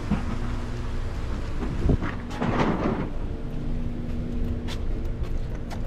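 Steady low engine rumble with a sharp knock about two seconds in, followed by a short burst of rustling noise and a few light clicks.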